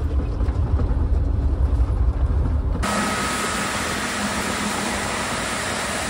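Low, steady rumble of a Volvo VNR semi truck's engine heard from inside its cab while driving. About three seconds in, it cuts abruptly to a John Deere S790 combine running close by as it unloads peas through its auger into a grain trailer: a steady, full-range noise with a faint high whine.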